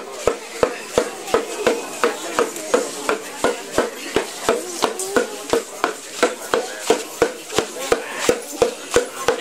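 A drum beaten in a steady rhythm of about three beats a second for dance music, with voices beneath.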